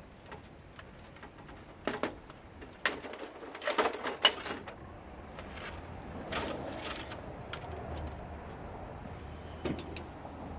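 Scattered clicks and knocks of hand tools and plastic and metal parts being handled while a CRT television is stripped for scrap, the loudest cluster about four seconds in. A faint low hum sets in after about six seconds.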